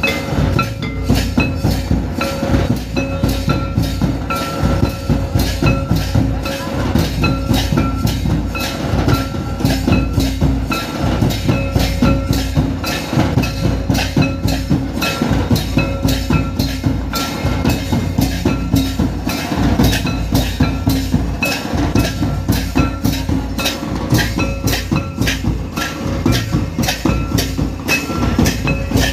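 Santali traditional drum ensemble playing a fast, driving dance rhythm: barrel drums and a large kettle drum struck in dense, repeated strokes. Short held tones recur at the same pitches above the drumming throughout.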